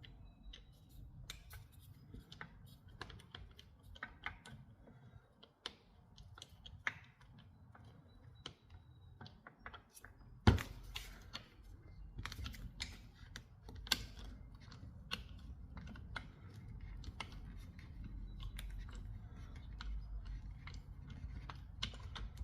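Light clicks and taps of rifle parts being handled and fitted together during reassembly of a Remington 760 pump-action rifle, with one sharper knock about ten seconds in.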